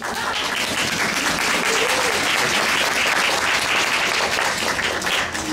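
Audience applauding: a steady round of many hands clapping, with a few voices mixed in.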